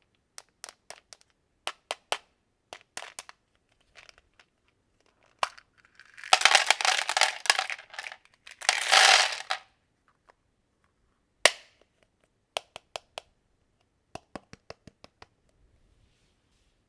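Small hard objects clicking and tapping as they are handled, with two longer, denser noisy bursts of rattling handling sound about six and nine seconds in.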